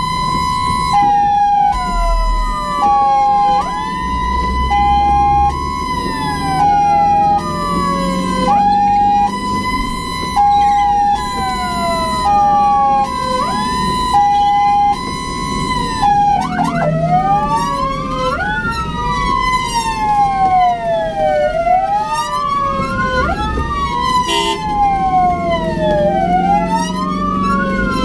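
Ambulance siren sounding a hi-lo two-tone alternation, switching about every half second, layered with a wail that falls and climbs again about every two seconds. About halfway through the two-tone stops and the wail sweeps rise and fall faster, overlapping one another, over a low vehicle rumble.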